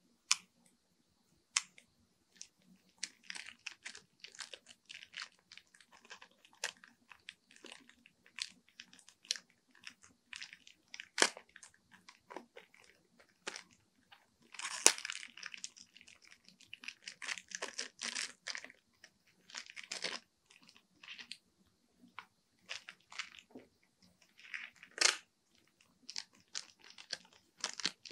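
Clear plastic packaging crinkling and crackling as pens are handled and unwrapped, with scattered small clicks and taps. Denser crinkling comes about halfway through and again a few seconds later.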